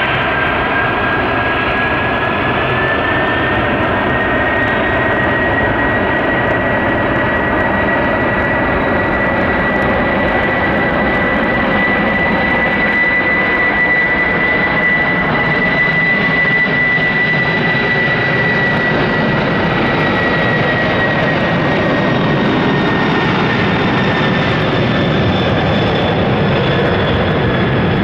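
Four Pratt & Whitney PW4000 turbofans of a Boeing 747-400 Dreamlifter running at high power for takeoff: a loud, steady rush of jet noise with a high fan whine that rises in pitch over the first few seconds as the engines spool up, holds steady, then drops slightly near the end.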